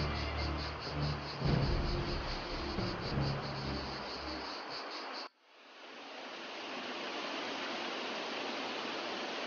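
Crickets chirping in a fast pulsing trill over low droning tones, cut off suddenly about five seconds in. Then the steady rush of a waterfall fades in and holds.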